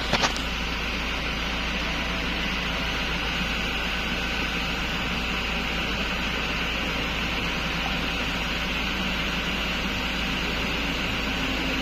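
Toyota Fortuner's 2.8 four-cylinder turbodiesel idling at about 850 rpm, a steady hum and hiss with no change in speed. A couple of short clicks come right at the start.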